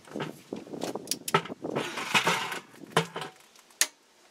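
Steel wrenches and a ratchet clinking and rattling against each other and the brake caliper bolts, with several sharp metallic clicks; the loudest comes near the end.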